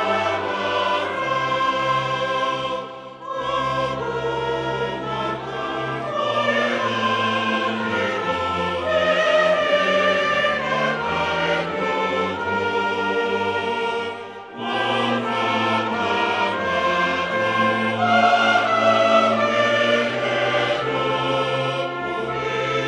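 Choral music with orchestral accompaniment: a choir singing long held notes over a moving bass line, with two short breaks between phrases.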